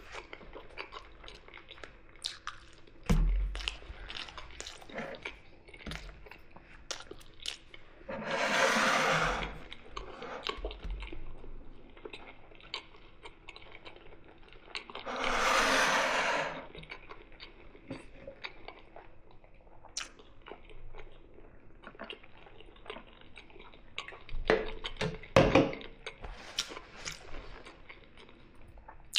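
Close-up eating sounds: chewing of mici, fries and fried eggs, with many small clicks and taps. Two longer hissing noises of a second or two each come about a third and halfway through.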